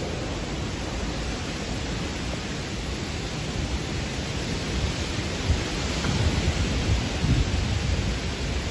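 Storm noise: a steady rushing hiss of wind and rain, with low gusts buffeting the microphone that grow stronger in the second half.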